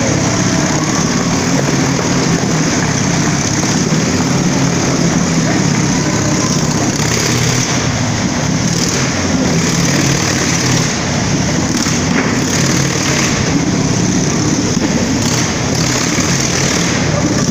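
Motorcycle engines running loud and steady as the bikes ride round the wooden wall of death.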